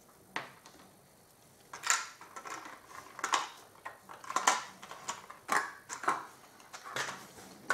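Clear plastic blister packaging of resin figures being handled and set down on a cutting mat: irregular sharp clicks and crinkles, one about half a second in, then a steady run of one or two a second from about two seconds in.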